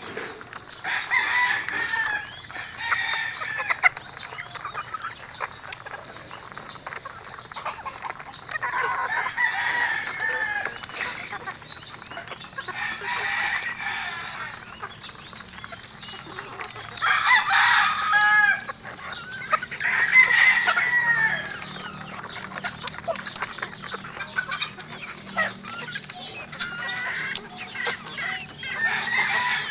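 Flock of gamefowl feeding: roosters crowing every few seconds, each crow a second or two long, over clucking and a steady scatter of small clicks from beaks pecking at a bamboo feed trough.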